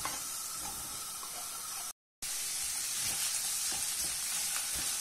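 Sliced onions sizzling steadily in hot sunflower oil in a frying pan as they go in. The sound cuts out completely for a moment about two seconds in, then the sizzle carries on.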